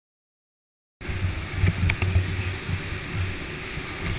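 After about a second of silence, go-kart engines start to be heard running on an indoor track: a rumble that rises and falls, with a steady hiss over it.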